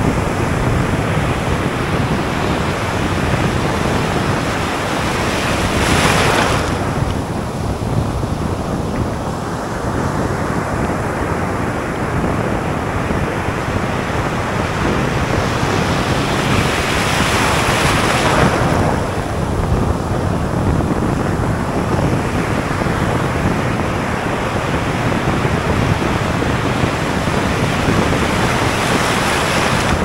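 Surf breaking and washing over a shallow sandy beach, heard from right at the water's surface: a continuous hiss of foam and wash, with two louder surges of hissing foam, a short one about six seconds in and a longer one just past the middle.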